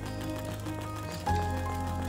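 Instrumental background music: held notes over a steady bass, moving to a new chord a little past halfway.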